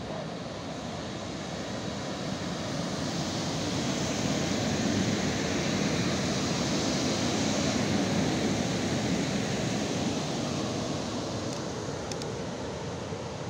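PKP Intercity EP09 electric locomotive passing close by on the platform track: a rushing rumble of wheels on rail that swells to its loudest around the middle and then fades, with a few faint clicks near the end.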